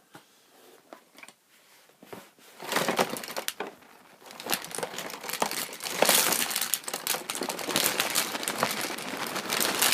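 Rustling and a dense clatter of many small plastic objects as a box full of disposable lighters is opened and rummaged through. A few light clicks start it off, then a steady crackle of knocks and crinkles builds from about three seconds in.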